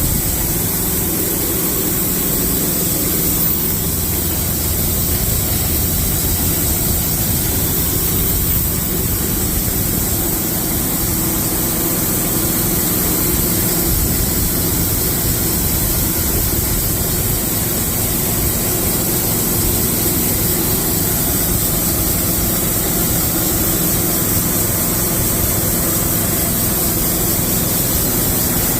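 19 horsepower Kohler engine on a homemade sawmill running steadily.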